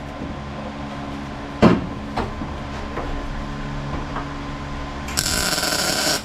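A sharp knock about a second and a half in over a steady hum, then, near the end, about a second of a welding arc crackling as a bead is laid on a car's floor-pan channel.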